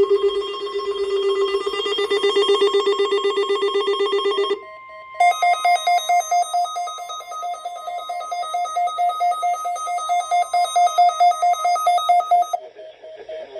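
Electronic Emergency Alert System test alert tones. A low, buzzing, rapidly pulsing tone lasts about four and a half seconds, then comes a short steady beep, then a higher pulsing tone until about twelve and a half seconds in, when it drops to a fainter tone.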